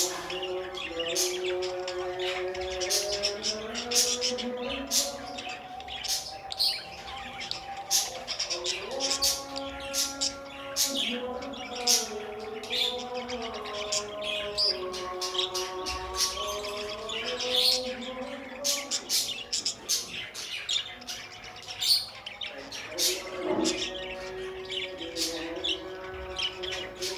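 Budgerigars chirping, a steady stream of short sharp chirps, over background music with a slow melody of held notes.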